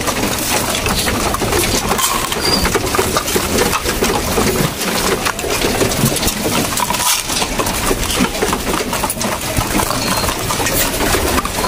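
Pigeon feed of hard grain and pellets clattering in plastic feeders, a dense, continuous run of small hard clicks as the feed is given out and the pigeons peck at it.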